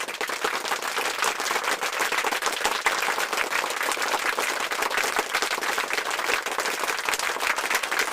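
Crowd applauding, a dense steady clatter of many hands clapping that cuts off suddenly at the end.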